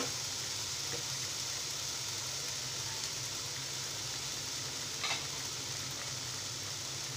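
Diced potatoes, carrots, onion and green chillies sizzling steadily in hot oil in a nonstick frying pan, with one light tick about five seconds in.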